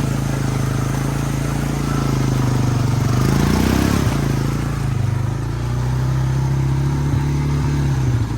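Honda ATV engine running under steady throttle, revving up once about three to four seconds in and settling back.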